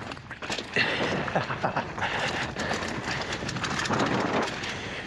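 Polygon Siskiu N9 mountain bike descending a dirt trail: tyres rolling over the ground under a steady haze of wind and trail noise, with frequent sharp rattles and knocks from the bike over bumps, loudest about a second in.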